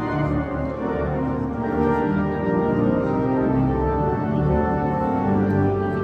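Cathedral pipe organ playing a hymn in full sustained chords over deep pedal bass notes, the harmony shifting every second or so.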